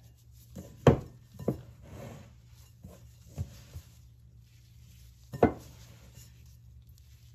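Gloved hands crumbling grated cassava in a glass mixing bowl: faint rustling of the crumbs with a few sharp knocks of the glass bowl, the two loudest about a second in and at about five and a half seconds.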